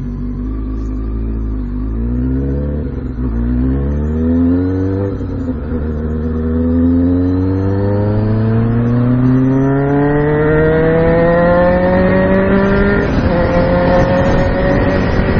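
2006 Kawasaki Ninja ZX-6R 636's inline-four engine accelerating hard through the gears: three short quick rises in pitch with a drop at each upshift, then one long climb and another upshift near the end.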